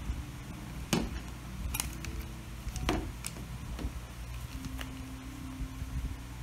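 A few sharp plastic clicks and light knocks as the scooter's tail light housing and its wiring connector are handled and worked loose.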